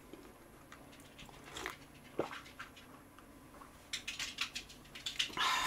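A person gulping milk from a glass: a few faint mouth sounds, then a quick run of swallows at about four to five a second from about four seconds in, followed by a breathy exhale near the end.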